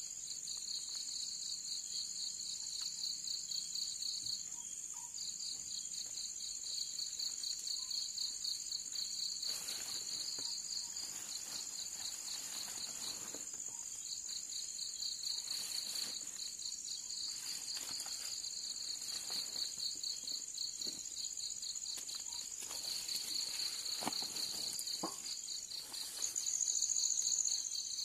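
Night insects calling: a cricket's fast pulsing trill, pausing briefly about four seconds in, over a steady high-pitched insect drone.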